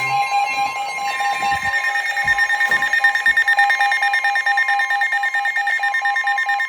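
Emergency Alert System alert tones sounding from radios, signalling a severe thunderstorm warning: a steady, pulsing alarm tone, joined about a second in by a second, higher alert tone.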